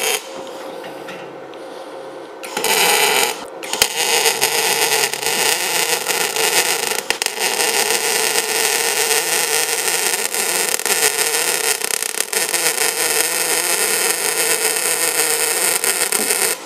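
Novoarc MIG-200GB welder running a CO2 gas-shielded MIG arc on thin sheet steel at low current. A brief tack about three seconds in, then from about four seconds in a continuous bead with a steady crackling arc that stops abruptly at the end.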